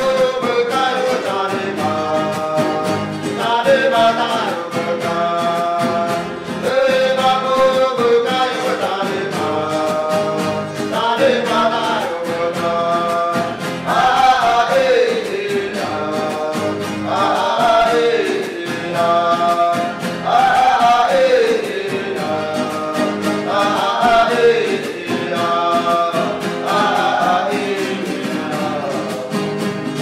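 Huni Kuin chant sung by several voices over strummed acoustic guitar, the sung phrases sliding downward and recurring every few seconds.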